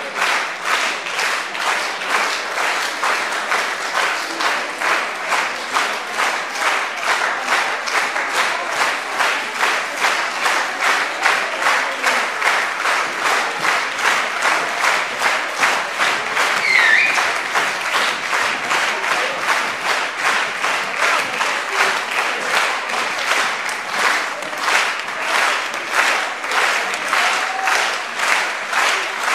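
Theatre audience applauding, clapping together in time at a steady beat of about two to three claps a second.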